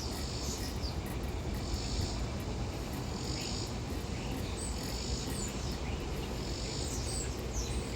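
Cicadas buzzing in a steady, high chorus, really loud, with a few short high chirps over it.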